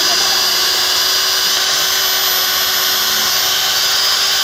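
Corded electric hand drill running steadily at full speed, its motor whining while it bores a hole through a bamboo pole.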